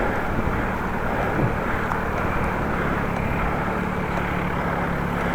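Strong wind rushing over the microphone of a bicycle-mounted camera, riding into a headwind. A steady low drone joins from about halfway through.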